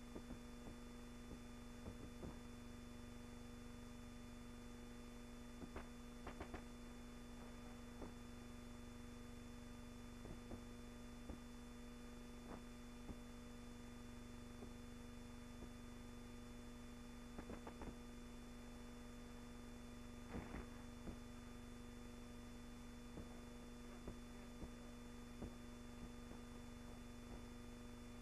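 Low, steady electrical hum with scattered faint clicks and crackles at irregular moments, the background noise of an old film soundtrack with no other sound on it.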